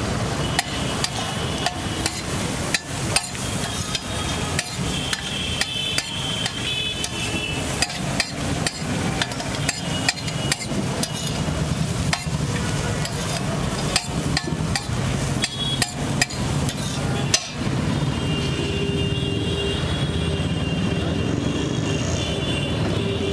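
A metal spatula strikes and scrapes a flat steel griddle in rapid, irregular clacks as it tosses and chops bread cubes frying in butter. The clacking stops about three quarters of the way through, leaving steady background noise.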